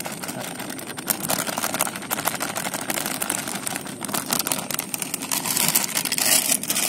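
Plastic packet crinkling and rustling as raw maize flour is poured from it into a steel bowl, with a hand rubbing and mixing the dry flour in the bowl near the end.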